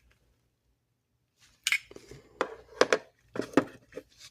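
Metal parts of a Zippo table lighter clinking and knocking together as they are handled: a quiet start, then about half a dozen sharp clinks from a little over a second in.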